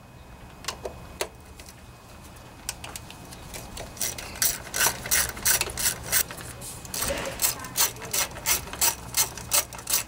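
Hand socket ratchet working an 8mm bolt loose. It clicks in a steady rhythm of strokes from about four seconds in, after a few light knocks.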